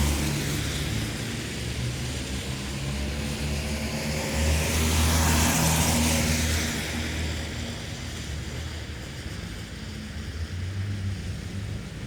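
Town traffic on a wet road: a steady low rumble of engines and the hiss of tyres on wet tarmac. A vehicle passes about five seconds in, its tyre spray swelling and fading away.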